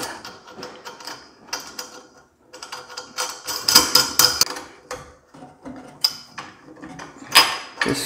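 Mounting nut spun by hand onto the threaded shank of a faucet valve: a run of quick clicks and rattles, thickest a few seconds in, with another clatter near the end.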